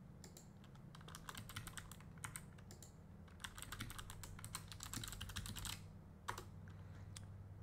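Typing on a computer keyboard: a quick, faint run of key clicks lasting about six seconds, then one last click and the typing stops.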